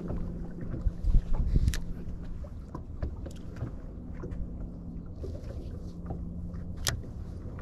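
Small fishing boat on the water: a steady low electric hum, fitting the bow-mounted trolling motor, over wind and water noise. A few low thumps come about a second in, and there are a couple of sharp clicks.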